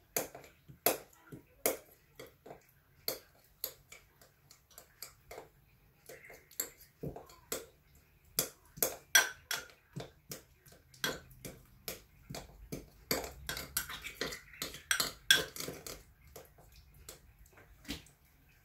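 Irregular sharp clicks and knocks of kitchen utensils against hard surfaces during home cooking. They come in uneven runs, thickest in the second half, and thin out near the end.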